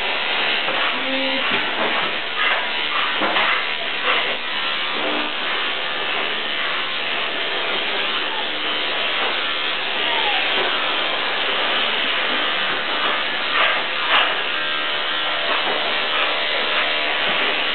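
Corded electric dog-grooming clippers running steadily as they shear a schnauzer's long coat in a rough cut before the bath.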